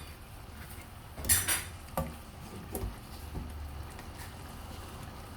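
A spoon stirring curry in a cooking pot, scraping and clinking against the pot: one loud clatter a little over a second in, then a couple of lighter knocks.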